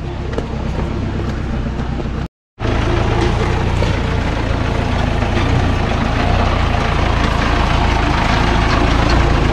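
Jeep engine running steadily with a low rumble, broken by a short full silence a little over two seconds in.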